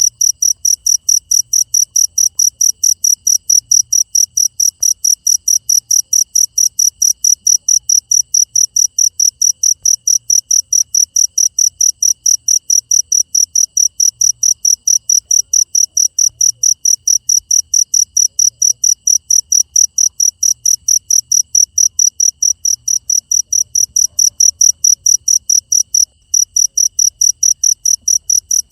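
Cricket chirping: a loud, steady, even run of short high-pitched chirps, several a second, with one brief break near the end.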